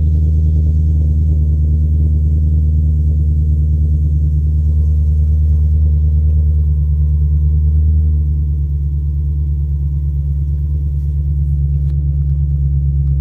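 BMW E92 M3's V8 engine idling steadily, easing slightly in level a little past the middle.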